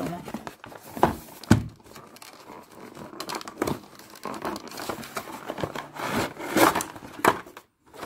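Cardboard box being opened and a clear plastic packaging tray slid out of it: an irregular run of rustling, crinkling and scraping, with two sharp knocks about a second in.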